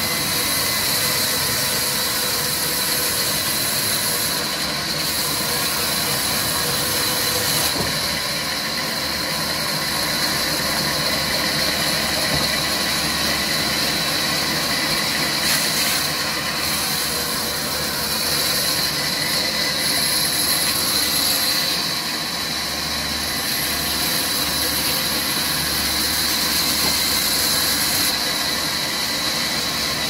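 Sawmill band saw running and cutting lengthwise through a long wooden slab as it is pushed through by hand: a steady, loud machine noise with a strong high hiss.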